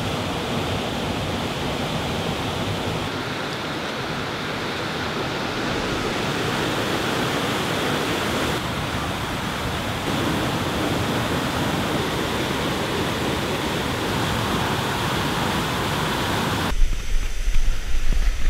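Large waterfall pouring into its pool, a steady rushing noise. About two seconds before the end this gives way to uneven low rumbling, typical of wind buffeting the microphone.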